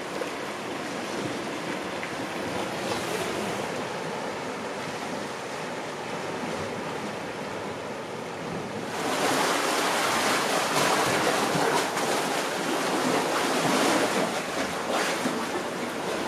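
Sea surf washing steadily on the shore, with wind on the microphone; it gets louder and fuller about nine seconds in.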